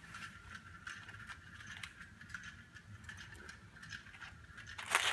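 A gold plastic Easter egg handled and shaken, with light clicks and rattles from the foil-wrapped chocolate coins inside, and one loud rattle near the end.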